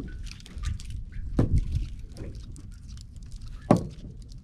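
Low rumble of wind and water around a small fishing boat at sea, with two sharp hits about a second and a half in and near the end.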